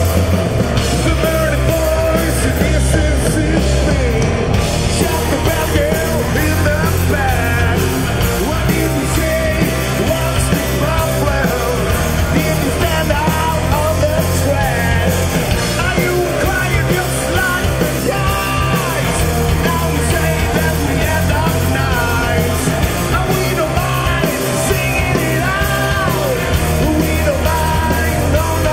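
Heavy rock band playing live at full volume: electric guitars, bass guitar and drums, with a singer's shouted vocals over them.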